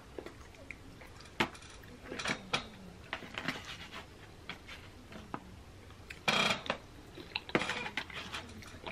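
Plastic fork scraping and clicking in a foam takeout container of nachos, with scattered light clicks and two louder scraping bursts in the second half.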